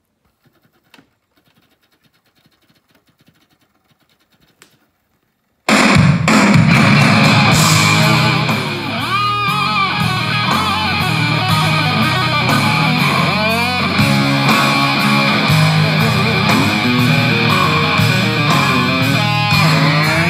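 Sony CFD-5 boombox playing heavy rock from its CD player through its own speakers. After a few seconds of near silence with a few faint clicks, electric guitar and drums start suddenly, about six seconds in, and keep going loud.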